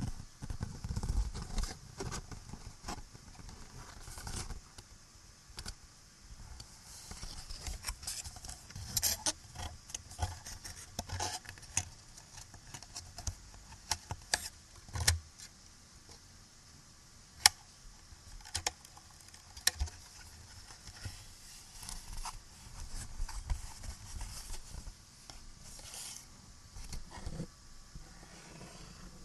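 Close-miked scratching, tapping and fiddling with small objects: irregular clicks, taps and scrapes, with one sharp tap about two-thirds of the way through, over a steady recording hiss.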